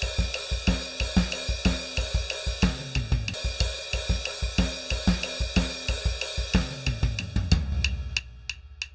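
Sequenced digital drum kit playing a steady groove of kick drum, snare, hi-hat and cymbals. Near the end the pattern stops, leaving a low ringing decay with evenly spaced click-track ticks.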